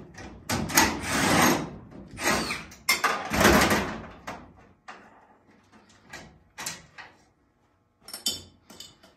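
Sheet-metal rear decking of a dirt late model being worked loose with a hand tool: a run of loud, irregular scraping and rattling in the first four seconds, then fainter scrapes and clicks.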